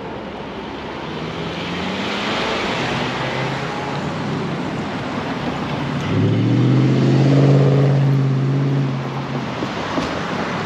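Road traffic on a city street. A vehicle engine passes about a second in, and a louder engine rises slightly in pitch as it accelerates past about six seconds in.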